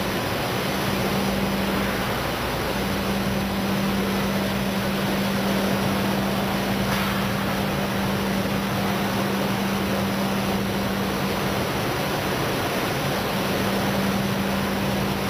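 ERSA Versaflow 40/50 selective soldering system running: a steady, even rush of machine and air noise with a low steady hum. The hum drops out about two seconds in and again near twelve seconds, then returns.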